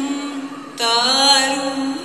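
Recorded semi-classical Indian dance song: a woman's voice holds and bends long melodic notes over a low held tone, a new sung phrase starting a little under a second in.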